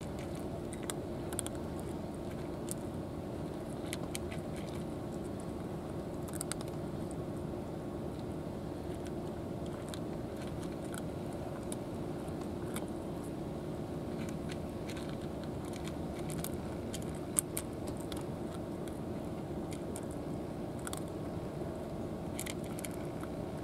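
A domestic cat eating dry kibble from a plastic tray, with scattered crisp crunches as it chews, one louder click about three-quarters of the way through, over a steady low background rumble.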